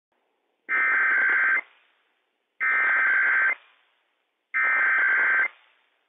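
Emergency Alert System SAME header data sent three times over NOAA Weather Radio station WWF56: three identical buzzy data bursts switching between two high tones, each just under a second long and about two seconds apart. The header encodes a Required Weekly Test.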